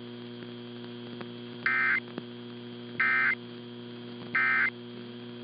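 Emergency Alert System SAME end-of-message data signal on NOAA Weather Radio: three short, shrill two-tone digital bursts about a second and a half apart, marking the end of the warning. A steady electrical hum runs underneath.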